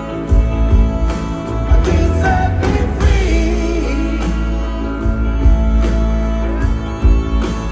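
A live band plays a slow soul-rock song on hollow-body electric guitar, electric bass, drums and horns, with a drum beat throughout and singing over it, heard from the audience.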